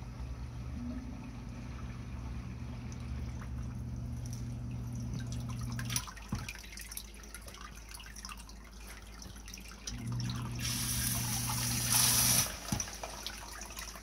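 Submersible sump pump running with a steady motor hum, cutting off about six seconds in, then running again for a couple of seconds near the end. Water trickles and splashes in the sump pit, with a loud rush of water as the pump comes back on, pumping out rinse water.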